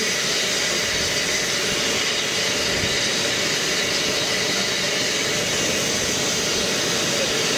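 Steam locomotive blowing off steam: a loud, steady hiss.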